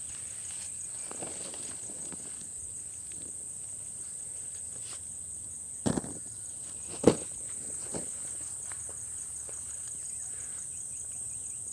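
Steady high-pitched insect drone, crickets or cicadas chirring, with two sharp knocks a little past the middle, the second louder, and a fainter one about a second later.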